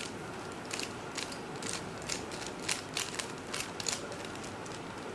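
Plastic 3x3 speed cube, a DaYan ZhanChi, being twisted by hand: a quick, irregular run of sharp clicks as its layers snap through turns, starting about a second in and stopping about a second before the end.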